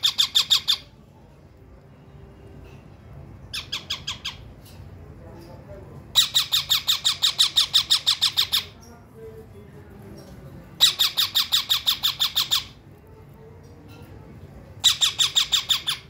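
Young parakeets making rapid, repeated harsh squawking calls in bouts of one to three seconds while being hand-fed, typical chick begging calls. One bout ends just after the start, and four more follow: around 4 s, from about 6 to 9 s, from about 11 to 12.5 s, and one near the end.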